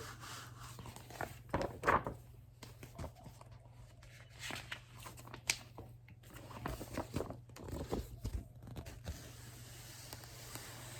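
Irregular soft rustling and handling of a paper picture book as it is held and its pages moved, over a faint steady low hum.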